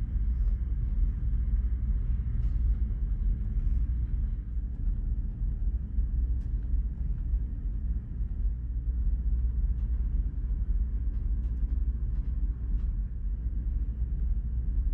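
Steady low drone of a ship's engines heard inside a ferry cabin, with a few faint small clicks on top.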